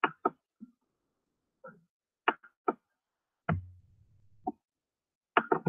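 Irregular short knocks and clicks, a few sharp strokes with a cluster of quick ones near the end, and a brief low hum about three and a half seconds in.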